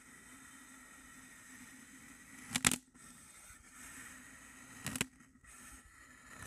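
Slotted metal spatula slicing through a dome of packed kinetic sand, with crunchy crackles as the layers break: a sharp double crunch about two and a half seconds in, the loudest, and another near five seconds, over a faint steady hiss.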